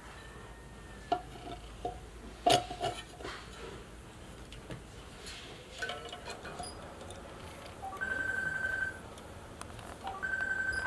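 Metal clinks and knocks as a fan blade's hub is handled and fitted onto an exhaust-fan motor shaft, the loudest about two and a half seconds in. Later come two steady high tones, each about a second long.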